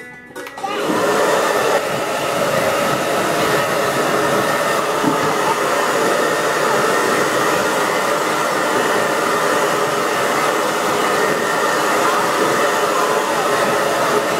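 Hand-held hair dryer switched on about a second in and blowing steadily, a loud even rush of air and motor.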